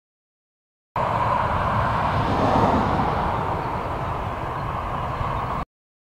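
A car driving past on a paved road: steady tyre and engine noise that swells about two and a half seconds in and then eases off. It starts and stops abruptly at edits, with silence for about the first second.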